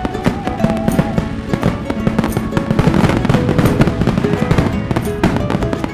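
Fireworks going off in a rapid, uneven run of bangs and crackles, with music playing underneath.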